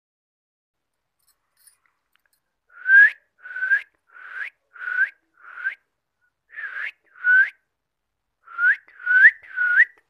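A series of about ten short whistles, starting about three seconds in, each a clear note that slides upward at its end, coming in uneven groups with two short pauses.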